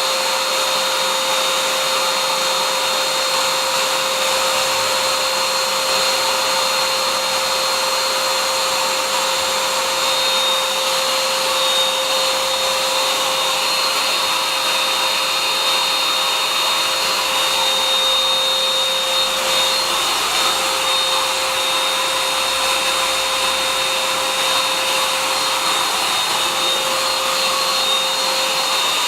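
ABLE OV6 600 W electric air pump running steadily: a constant blower rush with a steady motor whine.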